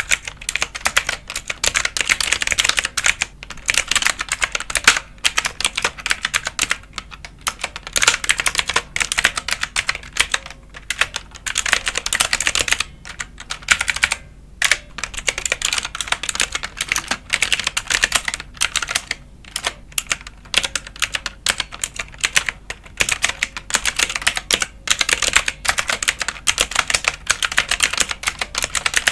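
Fast continuous typing on a computer keyboard, a dense run of key clicks with a few brief pauses.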